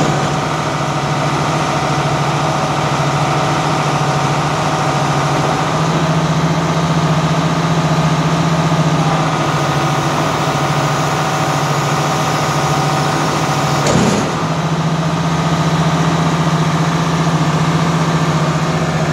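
Bale processor and the tractor engine driving it running steadily at idle, an even mechanical hum. One brief knock about three-quarters of the way through.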